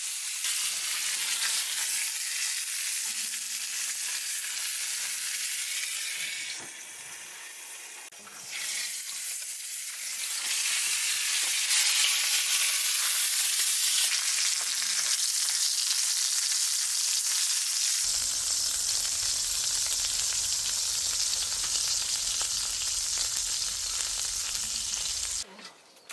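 Pork belly sizzling and frying in a hot pan: a steady hiss that dips briefly about a quarter of the way in and stops abruptly just before the end.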